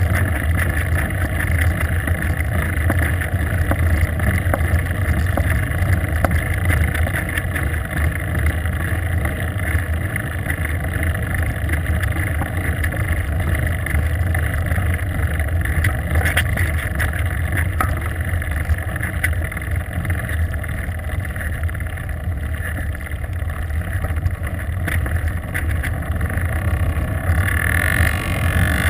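Steady low rumble of wind buffeting a helmet-mounted GoPro's microphone during a downhill bicycle descent.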